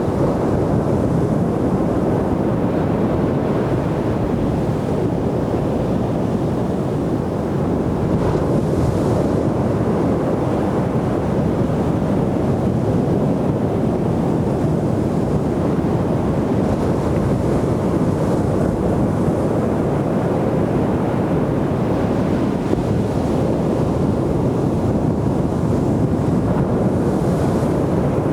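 Ocean surf washing onto a beach, a steady rush with no lull, brightening into a hiss as waves break about a third of the way in, around the middle, and near the end.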